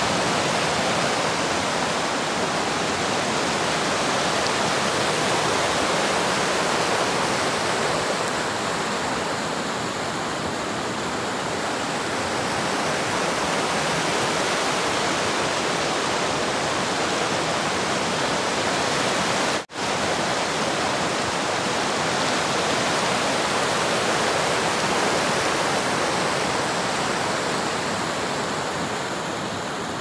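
Icy mountain river rushing over rocks: a steady, loud rush of flowing water. It cuts out for an instant about twenty seconds in.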